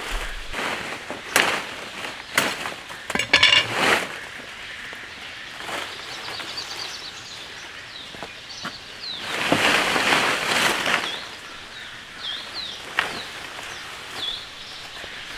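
A small bird chirping in short repeated notes, with scattered knocks, a brief rattle of clinks and a rustling swell of handling noise over a steady outdoor hiss.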